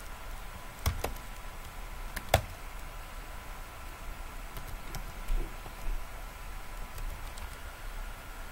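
Scattered light clicks and taps, the loudest about two seconds in, over a faint steady electrical hum.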